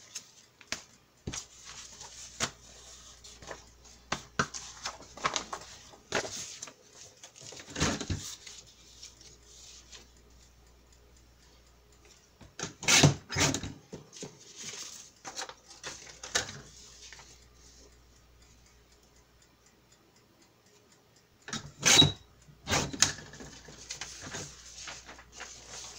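Paper sheets rustling and being shuffled by hand, in irregular spells with a few sharper knocks. The loudest moments come about halfway through and again a few seconds before the end, with a quieter stretch between.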